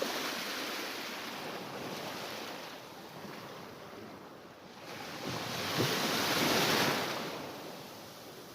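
Mediterranean surf: small waves washing onto the shore, with one louder wave breaking about five seconds in and then draining away.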